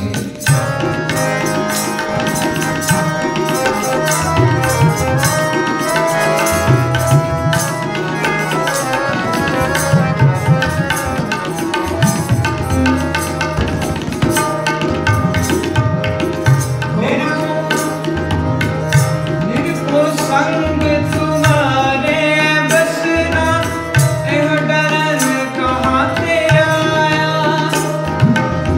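Kirtan music: harmoniums holding a sustained melody while a tabla keeps up a steady, busy rhythm of strokes, with a recurring low bayan drum tone.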